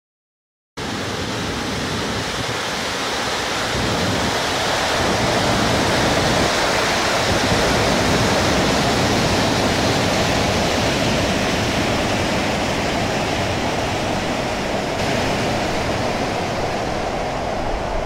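Waterfall rushing: a loud, steady wash of falling water that starts abruptly just under a second in.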